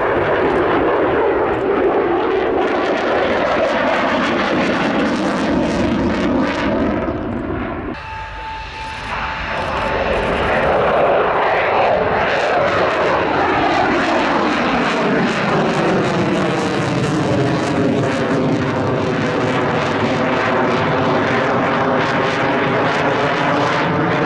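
Lockheed Martin F-16's single jet engine passing overhead, loud, its tone sweeping up and down as the jet flies by. About eight seconds in the noise dips abruptly, then builds back up.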